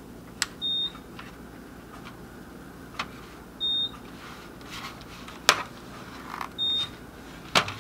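Three short high-pitched electronic beeps, about three seconds apart, among scattered sharp clicks and knocks from handling.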